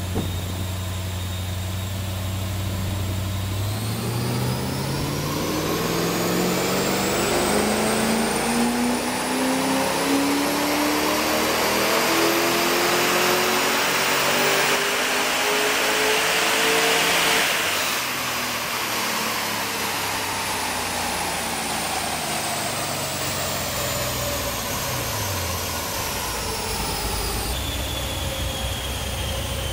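Holden VZ SS Ute's LS1 V8, with a custom cam, 1-3/4-inch headers and a single 3-inch exhaust, idling, then revving up in one long, smooth full-throttle dyno pull that climbs steadily for about 13 seconds. The throttle shuts about 17 seconds in and the revs fall away gradually as the rollers coast down, settling back to idle near the end, with a high whine that rises and falls along with the engine.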